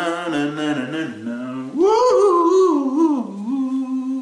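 A voice humming a wordless tune in long held notes, jumping to a higher, wavering note about two seconds in and then settling on a steady lower note.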